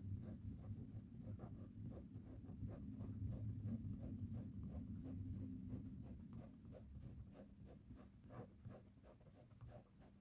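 Fingertips rubbing back and forth over a leather chair seat, a steady run of short scratchy strokes about three a second, working off sticky packing-tape glue residue.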